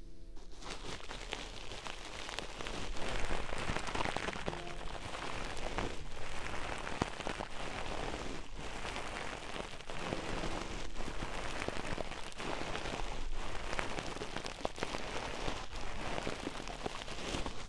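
An ear-cleaning tool scraping and rubbing inside the silicone ear of a binaural microphone, close and crackly, with many small clicks.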